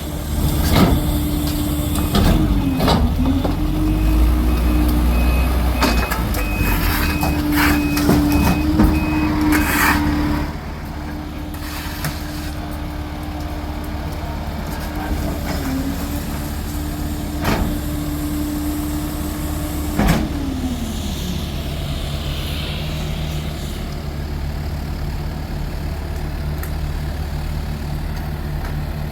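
Heavy work vehicle's engine running at raised speed while a reversing beeper sounds in steady beeps for about eight seconds, with several sharp knocks and clanks. About twenty seconds in, the engine drops back to a lower idle.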